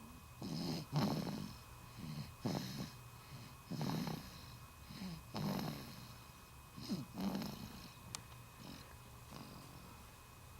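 A four-week-old baby snoring in her sleep, a snuffly snore on each breath about every second and a half, growing fainter over the last few seconds.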